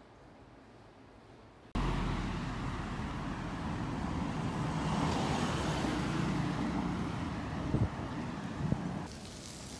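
Faint room tone, then, cut in abruptly about two seconds in, steady street traffic noise: the rumble and hiss of passing cars. Two short knocks come near the end, and the noise drops back just before the end.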